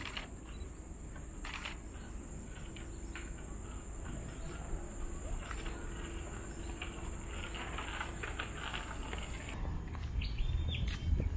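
Dusk insects, crickets or cicadas, keeping up a steady high-pitched drone, with a few short clicks. About ten seconds in the drone cuts off and a low rumble takes over, with a short bird chirp.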